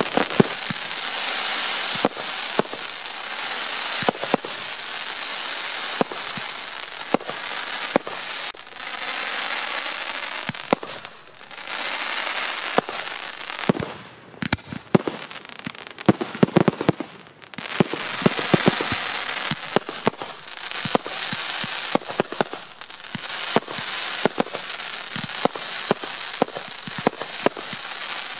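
Ground-launched fireworks going off: a steady hiss of rising comets and fountains with many sharp bangs and crackling bursts. The hiss drops away for a few seconds past the middle while the bangs go on.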